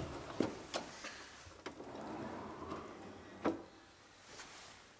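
Blum Space Step plinth step pushed open with a foot: a sharp click from its push-to-open mechanism, then a few light knocks and a steady rolling noise from about two seconds in as the step slides out on its runners.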